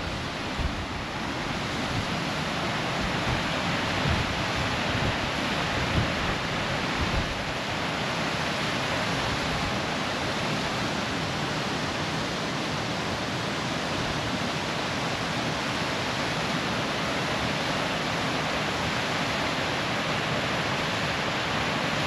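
Steady rush of water cascading over sandstone at Gunlock Falls. Wind buffets the microphone in gusts for the first several seconds, then the rush continues evenly.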